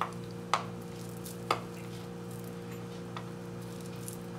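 Hands squeezing and rolling a ball of sticky chocolate-oat dough, giving sharp wet clicks: three louder ones in the first second and a half, then two faint ones, over a steady low hum.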